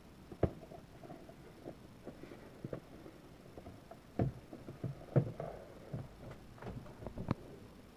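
Handling noise from a cardboard toy box being touched and shifted on a wooden table: scattered light knocks and clicks with faint rustling, the sharpest about half a second in and a few more between four and seven seconds in.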